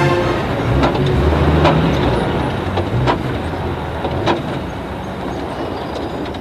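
Old Land Rover Series four-wheel drive running along a dirt road toward the listener, a steady low engine and road rumble with several sharp knocks from the vehicle, fading a little toward the end.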